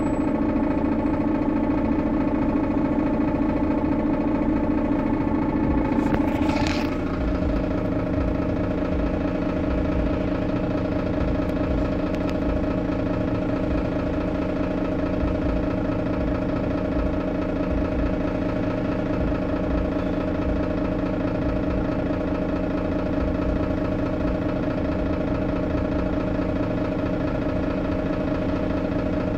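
Mercedes-Benz Citaro O530G articulated bus's diesel engine idling steadily. About seven seconds in, a short falling whine sounds and the engine note settles a little quieter and lower, then runs on evenly.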